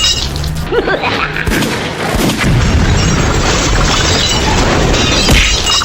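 Soundtrack of loud booming impact sound effects over background music, with a few sharp crashes.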